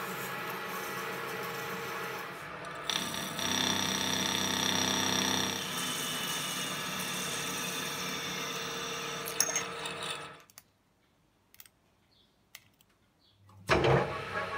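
Metal lathe running with a steady hum while it turns and drills small gland nuts for a steam pump. About ten seconds in the sound cuts off abruptly for roughly three seconds, with only a few faint clicks, then comes back loudly near the end.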